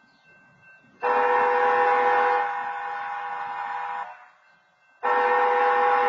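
Union Pacific locomotive air horn sounding two long blasts of the long-long-short-long grade-crossing signal. The first starts about a second in and lasts about three seconds, and the second begins about a second after it ends. Each is a steady chord of several tones.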